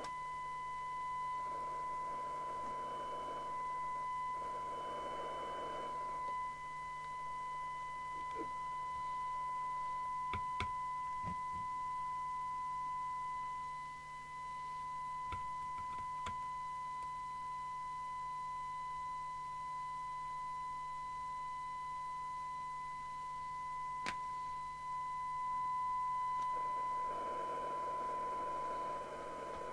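Steady test tone coming from a CB radio receiver, typical of a tone-modulated signal from a signal generator used to align the receiver. Hiss comes up under the tone for a few seconds near the start and again near the end, with a few faint clicks in between.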